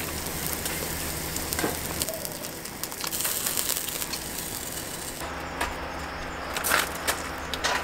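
Beef scraps sizzling and crackling on a tabletop charcoal grill. About five seconds in this gives way to a few short clatters as things are handled on the table.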